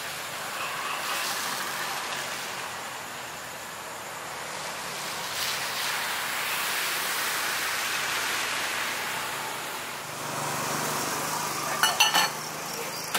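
Road traffic on a wet street: a steady hiss of tyres on wet tarmac that swells as a car goes by around the middle. Near the end comes a quick cluster of sharp clicks.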